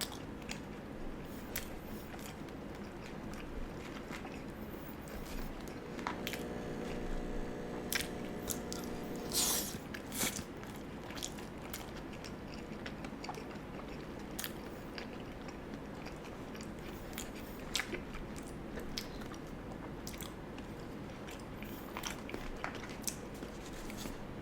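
Close-up eating sounds of a person chewing animal fries, with wet chewing and many small clicks of the mouth. A steady low hum runs for a few seconds about six seconds in.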